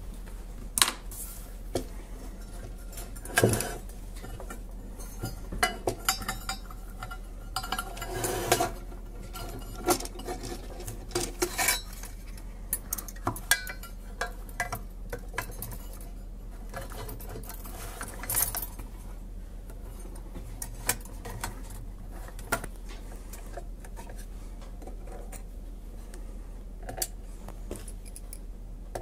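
Metal parts of a vintage Turner Plus 2 desk microphone being handled and fitted together: scattered clinks, clicks and knocks of the stand, head and base plate, thicker in the first two-thirds and sparser near the end, over a steady low hum.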